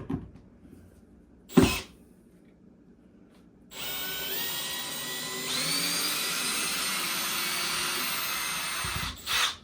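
A drill motor backing a screw out: a sharp click about one and a half seconds in, then the drill runs steadily for about five seconds, its whine stepping up in pitch as it speeds up, ending with a short knock.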